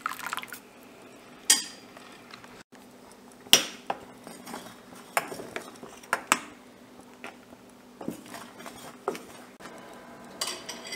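A spoon stirring milk and custard powder in a steel saucepan, scraping the pan and knocking its side in irregular sharp clinks about every second or two as the mixture heats and thickens.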